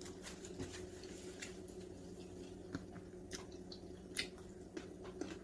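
A person chewing a bite of rice paper wrap filled with cucumber and carrot, with soft, irregular wet clicks and small crunches.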